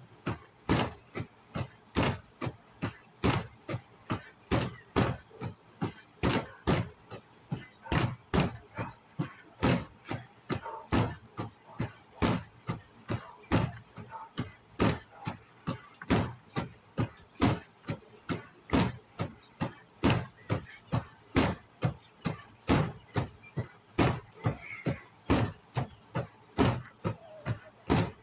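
Boxing gloves striking a round punching bag again and again, about two sharp smacks a second in a steady rhythm.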